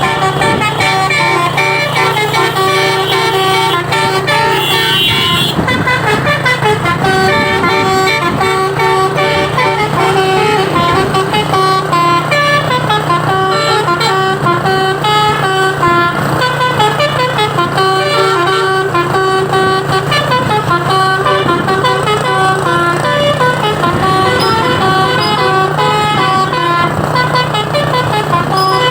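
A truck's 'telolet basuri' multi-tone musical horn playing a fast melody of stepping notes, with a steady low hum underneath.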